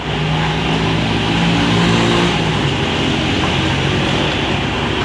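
Kubota KH60 excavator's diesel engine running steadily; its note changes slightly a little over two seconds in.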